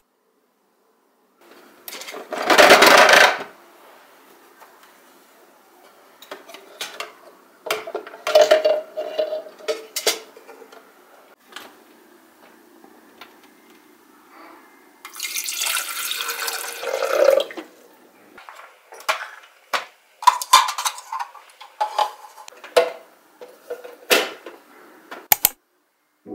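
Water poured from a filter pitcher into a Nespresso coffee machine's clear plastic water tank, the pitch of the pour rising as the tank fills. Around it are clinks, knocks and clicks of the tank, its hinged lid and the pitcher being handled.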